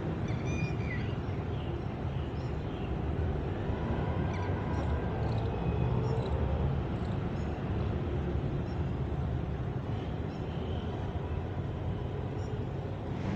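Steady outdoor background noise, a low even rumble, with a few faint high chirps near the start and some faint clicks midway.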